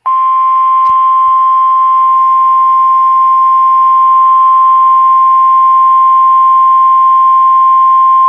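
NOAA Weather Radio 1050 Hz warning alarm tone: one loud, steady, unbroken beep. It is the attention signal that announces a tornado warning broadcast.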